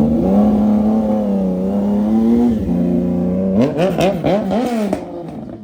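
CFMoto 675SR-R's inline-three engine through an Austin Racing full exhaust system, held at steady revs for over two seconds with a brief drop in pitch. This is followed by several quick rises and falls in revs before it fades near the end.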